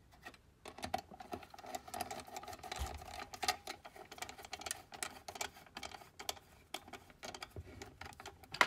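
Small electric screwdriver driving screws into a slide projector's housing: a steady motor whir mixed with many sharp clicks and rattles.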